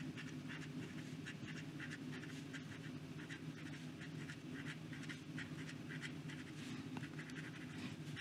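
The fine hooded nib of a Parker 51 fountain pen scratching quickly across Rhodia paper in short writing strokes, about three a second, over a low steady hum.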